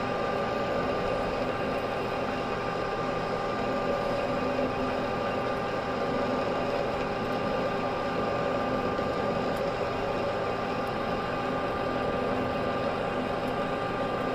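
Metal lathe running steadily while its cutting tool takes a fairly heavy roughing cut along a steel shaft: an even machine hum with several fixed tones over a steady cutting noise.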